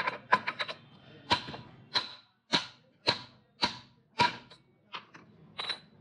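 Hammer strikes on steel, ringing, as a ball bearing is driven onto a motorcycle crankshaft: a quick flurry of light taps, then single blows about twice a second.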